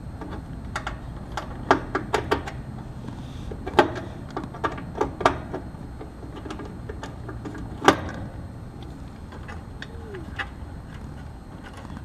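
Irregular metal clicks and clinks of a screwdriver and hardware being worked inside an air conditioner's electrical panel, as the screws holding the run capacitor are backed out. One sharper knock stands out about eight seconds in.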